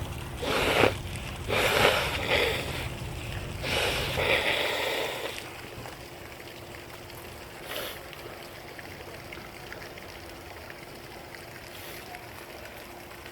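Shower water running steadily, with three loud, forceful bursts of a person clearing their nose in the first five seconds, the last one longer, about a second and a half.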